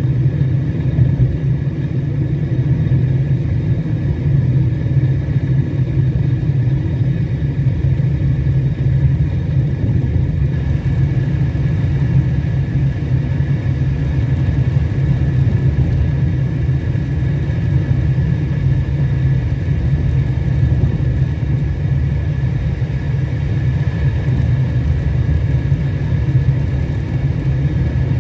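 Steady low rumble of a car driving along a road, engine and tyre noise at an even speed, with a faint steady high tone over it.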